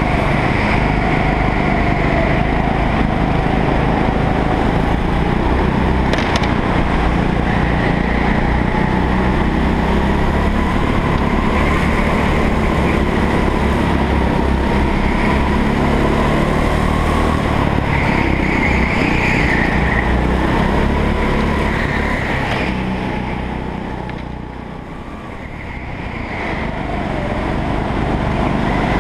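Go-kart engine heard from on board, running hard at high revs, its pitch wavering with the throttle. Near the end it drops quieter for a couple of seconds, then picks up again.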